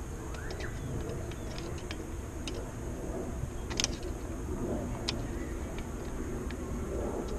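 Light metallic clicks and ticks from hands fitting parts and screws on a small two-stroke dirt bike's carburetor, a handful of them, the sharpest a little under four seconds in, over a steady low rumble.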